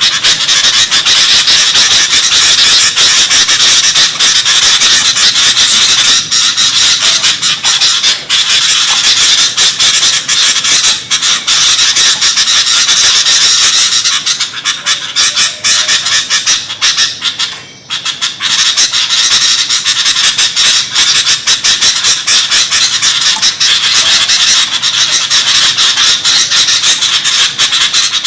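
A flock of sooty-headed bulbuls (kutilang) chattering noisily in a dense, continuous, loud stream of calls, the ribut (agitated) call used as a lure for bird trapping. A brief lull comes about eighteen seconds in.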